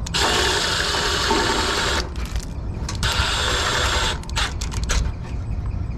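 Milwaukee cordless power driver running in bursts: a run of about two seconds, a pause, another run of about a second, then a few short blips.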